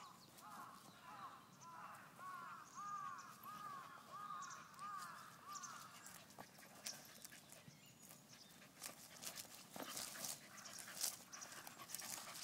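A crow cawing over and over, about two caws a second, stopping about halfway through. After that come scattered crackling and rustling sounds in dry leaves and grass.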